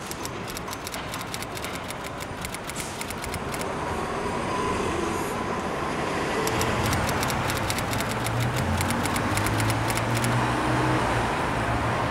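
Rapid clicks of a typewriter-style typing sound, in two runs, over a steady rumbling background that grows louder. A low hum joins about halfway through.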